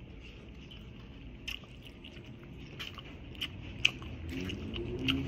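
Close-up eating sounds: chewing with scattered wet mouth clicks, and fingers picking up noodles and fish from a styrofoam takeout tray. One sharper click comes about four seconds in.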